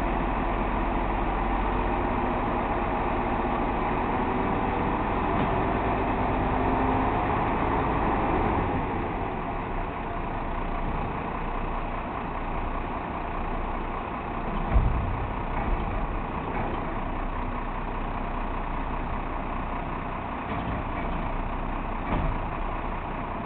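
Arm-roll hook-lift truck's diesel engine running raised under hydraulic load, with several steady tones, as the hook arm lowers the container onto the bed; about eight seconds in the tones fall away and the engine settles to idle. A single clunk about fifteen seconds in, with lighter knocks near the end.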